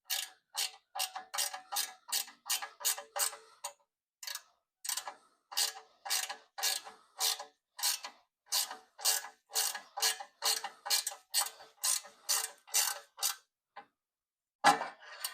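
Ratchet wrench clicking in short back-and-forth strokes, about three clicks a second, as a bolt on a motorcycle bash guard is wound in. The clicking pauses briefly about four seconds in and stops about two seconds before the end.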